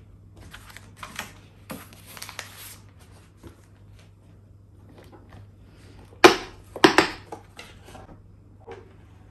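Handling noises of kitchen objects: light rustles and clicks, then two sharp knocks about six and seven seconds in, over a faint steady low hum.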